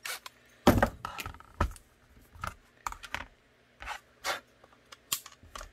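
Irregular clicks, taps and scrapes of a hard Kydex holster being handled on a workbench: about a dozen short, sharp sounds, the loudest about a second in.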